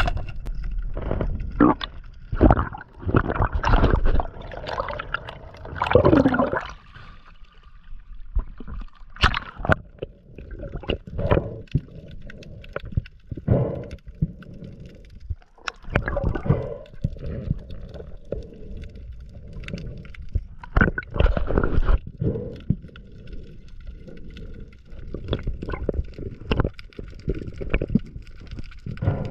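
Underwater sound from a spearfisher's camera: water gurgling and rushing, with irregular knocks and clicks.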